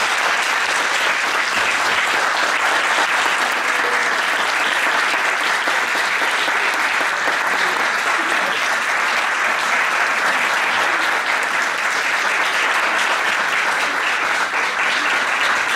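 A room of people applauding steadily.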